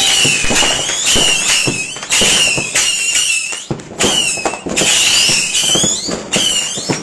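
Many fireworks going off together: overlapping whistling rockets, their whistles bending up and down, among a dense run of cracks and bangs.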